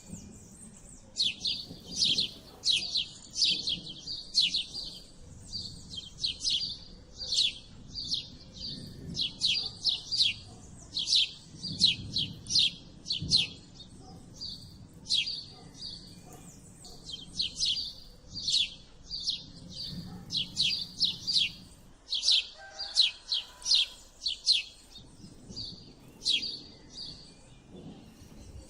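House sparrows chirping: a steady run of short, sharp, falling chirps, several a second, coming in clusters.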